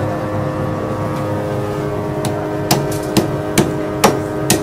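Cleaver chopping jerk chicken on a thick wooden chopping block: sharp chops about two a second, starting a little past halfway, over a steady background hum.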